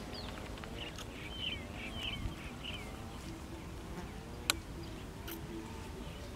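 An insect buzzing close by, its pitch wavering as it flies. Repeated short high chirps sound over it, and there is one sharp click about four and a half seconds in.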